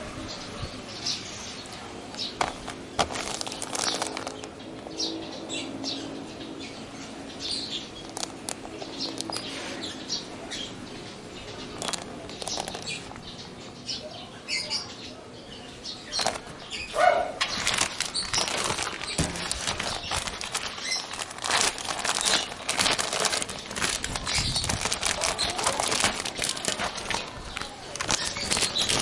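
Plastic packaging bag crinkling and rustling as it is handled, in irregular crackles that grow denser and louder about halfway through.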